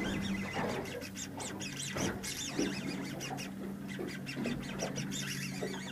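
Birds calling with many short chirps that rise and fall in pitch, over a steady low hum.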